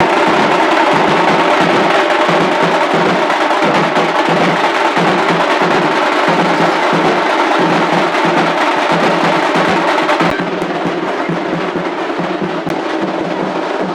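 Loud music carried by fast, dense drumming. The sound turns duller about ten seconds in, as its highest tones suddenly drop away.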